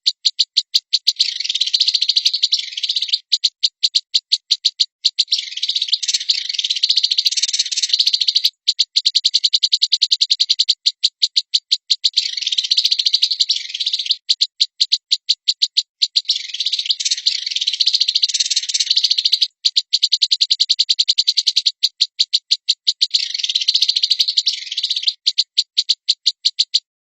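A small bird's call: long runs of rapid, evenly spaced clicks alternating every few seconds with a denser buzzing trill.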